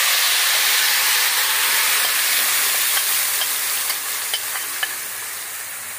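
Marinated rohu fish pieces tipped into hot mustard oil in a steel kadhai, the oil sizzling loudly and easing slowly, with scattered small pops and crackles.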